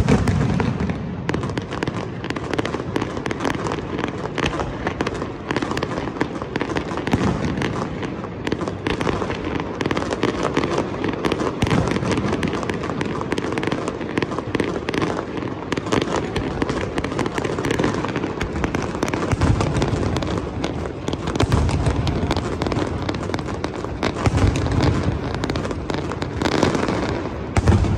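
Fireworks display: a dense, unbroken run of rapid bangs and pops, with deeper booms now and then and a heavy one near the end.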